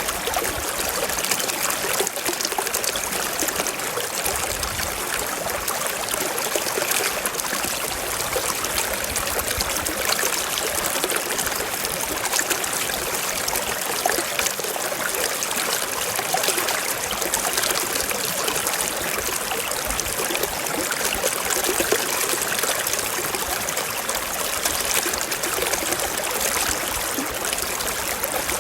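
Mountain stream flowing over rocks: a steady, even rush of water with fine trickling detail.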